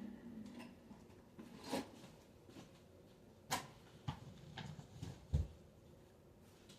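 A few scattered clicks and knocks of handling in a small room, with a low thump a little past five seconds in.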